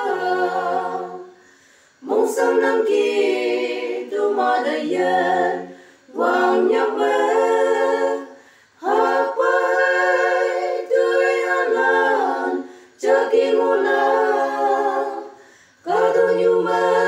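A cappella vocal harmony: several voices singing a slow song in Konyak, held chords in phrases of a few seconds each with brief breaks between them.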